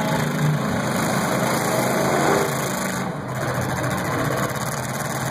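Demolition derby cars' engines running as the cars drive around the arena, a steady mix of engine noise.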